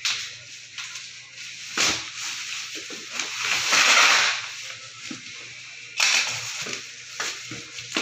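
Plastic bubble wrap and packaging crinkling and rustling as a parcel is cut and torn open with a box cutter, in several bursts, the longest about four seconds in.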